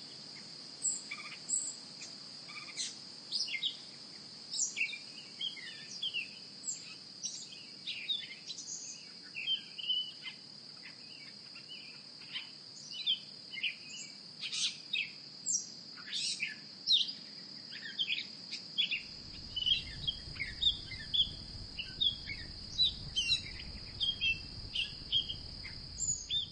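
Birds chirping with many short, quick calls over a steady high-pitched insect drone. A low rumble joins about two-thirds of the way through.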